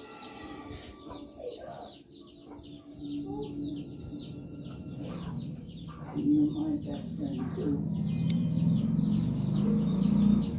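Chickens clucking with small birds chirping quickly throughout, the clucking growing louder in the second half.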